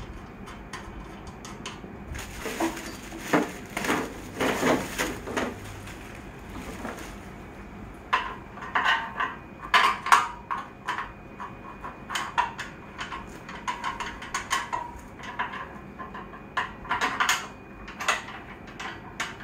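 Metal clinks and clicks of a treadmill's upright post being fitted and bolted to its base frame, in a quick irregular run through the second half. For a few seconds before that, the plastic wrapping rustles.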